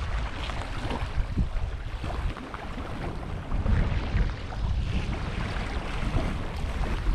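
Wind buffeting the microphone in uneven gusts, over small waves lapping at a lake shore.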